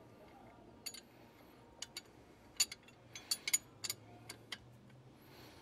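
Metal wrench working a 14 mm front brake caliper bolt: a series of short, sharp metallic clicks at irregular spacing, several coming close together around the middle.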